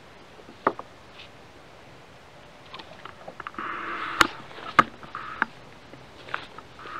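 Handling noises on a plastic fishing kayak: several sharp knocks and clicks, the loudest two about a second into the second half, with a brief rushing noise just before them.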